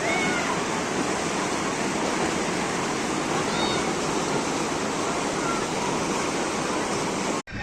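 A steady rushing noise with faint voices in it.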